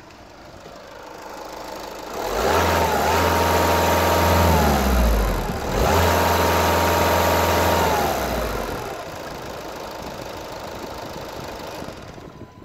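Volkswagen 2.0 TDI CBD-series common-rail four-cylinder diesel engine idling, revved twice. Each rev rises, holds steady for about two seconds, then falls back to idle, the first starting about two seconds in and the second about six seconds in.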